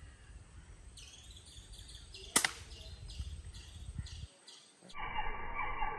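Single sharp crack of a Blanca air pistol firing a pellet, about two and a half seconds in. Birds chirp repeatedly behind it.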